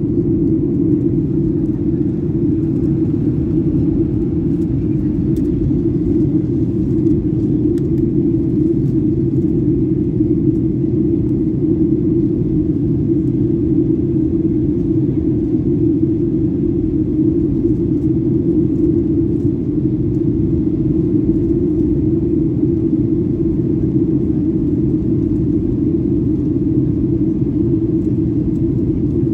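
Steady low drone inside the cabin of a Boeing 737 airliner in flight: jet engine and airflow noise heard from a window seat.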